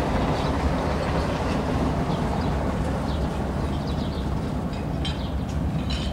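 Steady low background rumble of port and city ambience, with small birds chirping now and then; the chirps come more often and louder in the last couple of seconds.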